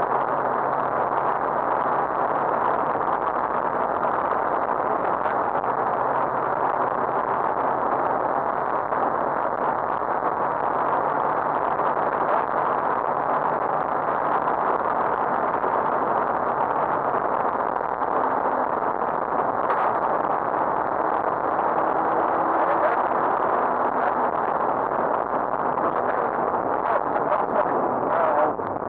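Rally car running at speed, heard from inside the cabin: a steady rush of engine, tyre and wind noise with a faint engine note underneath.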